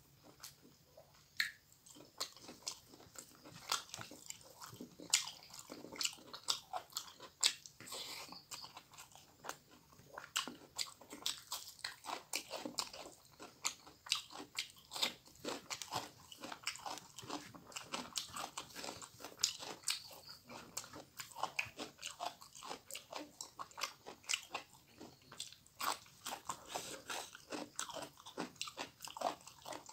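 Close-miked chewing and crunching of food, with many quick wet mouth clicks and crunches throughout; the food is rice with spicy pork fry and raw red onion, eaten by hand.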